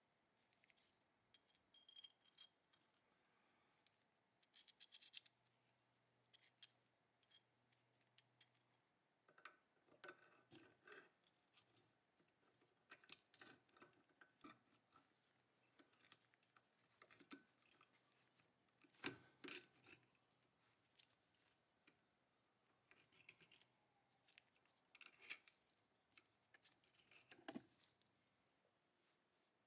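Steel parts of a Colt Model 1908 Vest Pocket .25 pistol clicking and scraping as the slide and recoil spring are fitted back onto the frame during reassembly. Faint scattered clicks and short metal scrapes, a few sharper clicks standing out.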